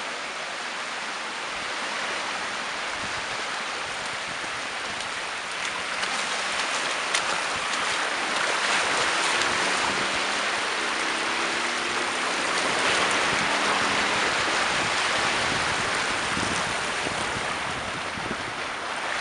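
Small waves washing in over shallow water on a sandy beach: a steady hiss of surf that grows a little louder about six seconds in.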